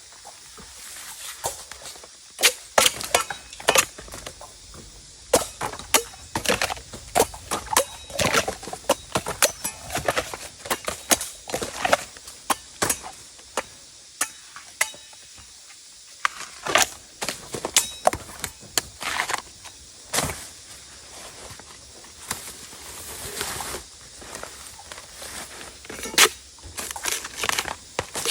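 A blade cutting into bamboo shoots: irregular sharp chopping and slicing strokes, sometimes several in quick succession, with short pauses between.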